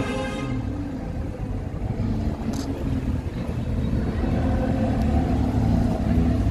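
Lamborghini Huracán's V10 engine running steadily at low revs as the car rolls slowly, a deep rumble with no revving.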